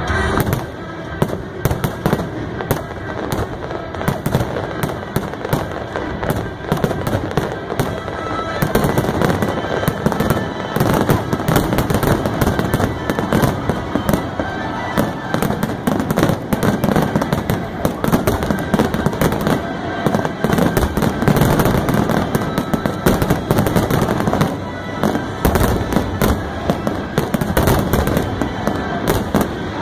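Aerial fireworks display, many shells bursting at once in a dense run of overlapping bangs and crackling that never lets up.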